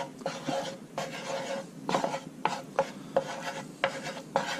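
A wooden spoon stirring and scraping red curry paste around a nonstick frying pan of hot oil, in uneven scraping strokes with light knocks against the pan.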